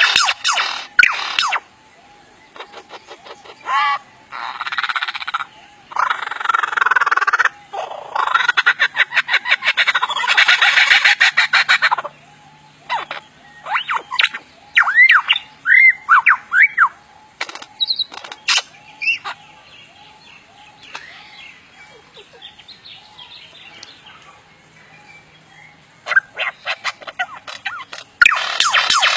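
Lyrebird singing a mimicry medley: loud bursts of rapid, rattling clicks like gunfire sound effects, then sharp whistled notes that sweep up and down. The rattling returns near the end after a quieter stretch.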